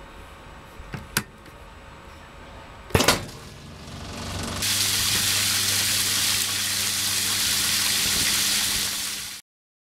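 Two sharp clicks from the control-panel switches of an automatic stainless-steel cow footbath, then its spray nozzles start jetting water across the tub floor, building over about a second to a loud steady hiss with a low steady hum underneath, cutting off suddenly near the end. This is the footbath's automatic rinse of the tub.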